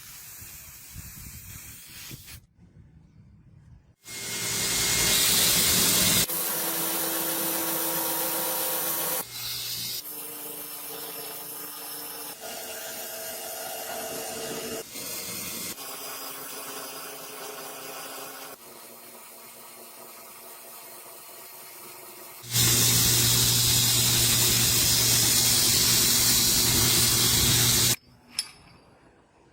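A run of short workshop clips cut abruptly together: loud steady hissing, rushing noise alternating with steady machine hums at different pitches. The two loudest stretches, one about four seconds in and a longer one past the twenty-second mark, are the hissing, rushing kind.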